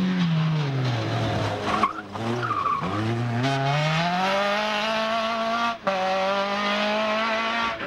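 Renault 11 rally car's engine: the revs fall as it slows, with two short blips of the throttle and a brief tyre squeal about two seconds in. It then accelerates back up through the revs and holds high revs.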